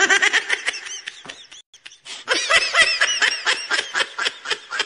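Loud laughter in rapid, high-pitched peals, breaking off briefly about two seconds in and then starting up again.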